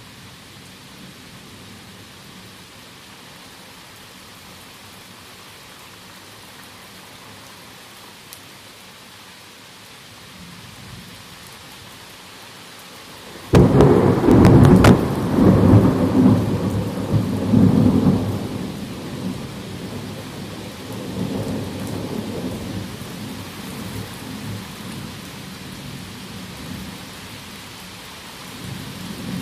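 Steady rain of a heavy thunderstorm, then a sudden loud thunderclap about halfway through that rolls on in rumbling peaks for several seconds and slowly dies away under the rain. Another rumble of thunder swells up near the end.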